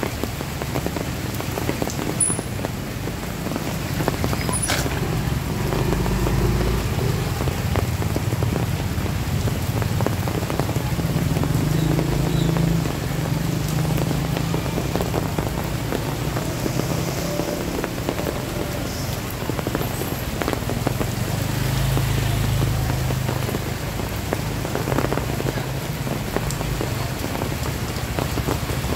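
Heavy rain pouring steadily onto a flooded street, an even hiss of falling water with a low rumble underneath.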